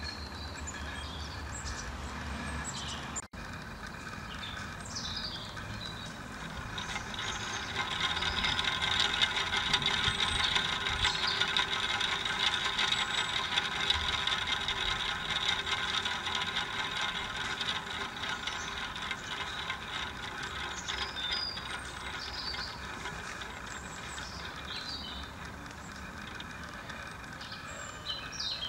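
A paper pinwheel whirring as it spins in the wind. The whir swells a few seconds in and fades toward the end as the blades slow. Short high chirps sound now and then.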